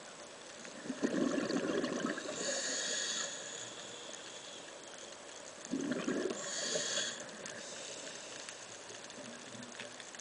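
Underwater breathing of a scuba diver through the regulator: two breaths about five seconds apart, each a bubbling rush followed by a hiss, over a steady underwater hiss.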